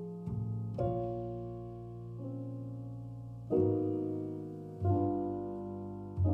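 Background piano music: slow, gentle chords, each struck and left to ring and fade before the next, about every one to one and a half seconds.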